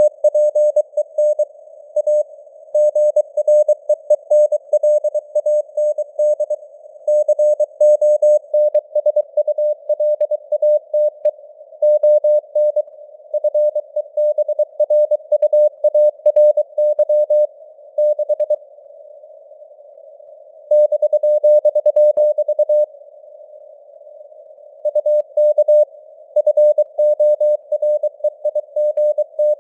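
Morse code sent at 23 words per minute as one mid-pitched tone keyed on and off in dots and dashes, over faint simulated radio receiver hiss. It stops for two longer pauses between groups about two-thirds of the way through.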